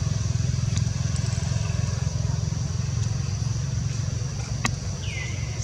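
A motor vehicle engine idling steadily, a low pulsing rumble. A steady high insect drone runs under it, and near the end a bird gives one short falling whistle.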